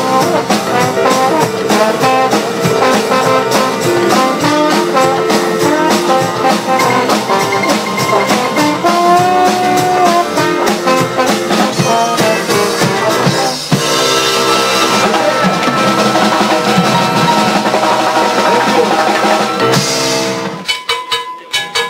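Live band with a trombone playing a line over drum kit and keys. About two thirds of the way in, the band moves to long held chords, and near the end the music drops to a quieter, sparser passage.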